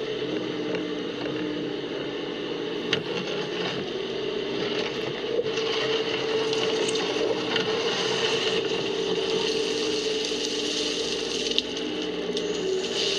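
Bobcat mini excavator's diesel engine and hydraulics running under load, a steady drone that shifts a little in pitch as the bucket digs. There are a couple of sharp knocks, one about three seconds in and one near the end.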